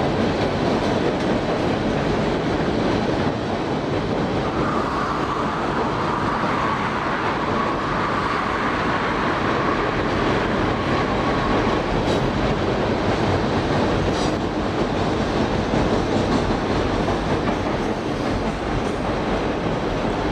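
Freight train cars rolling steadily across a steel trestle: a continuous rumble and rattle of wheels on rail. A faint high-pitched squeal rides on it from about five to twelve seconds in.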